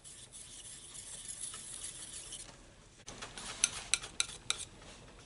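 Metal palette knife scraping and spreading oil paint across a palette. About three seconds in comes a quick run of about five sharp clicks as the blade scrapes and taps against the palette.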